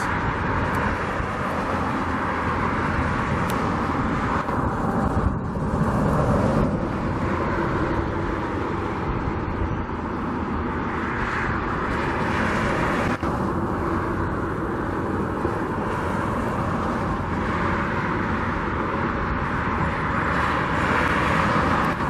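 Steady outdoor rumble of road traffic and wind, swelling a few times as vehicles pass.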